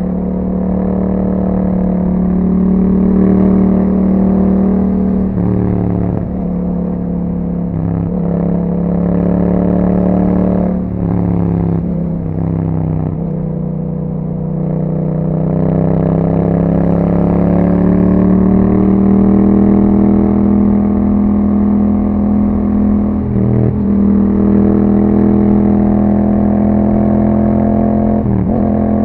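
2021 Yamaha MT-07's 689 cc parallel-twin engine through an Akrapovic exhaust, pulling while the bike is ridden. Engine speed rises and falls, with short breaks in the note at gear changes several times in the first half, then a steadier run with two more quick shifts near the end.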